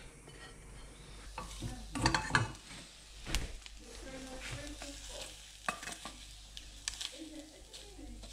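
Scrambled eggs sizzling in a frying pan while being stirred and scraped with a spatula, with scattered knocks of the utensil and pan; the loudest knocks come about two and three and a half seconds in.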